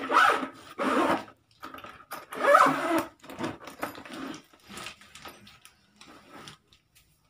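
Zipper on a fabric pet backpack carrier being pulled shut in several rasping strokes. The loudest come in the first three seconds, then shorter, fainter rasps follow as the pull is worked around the edge.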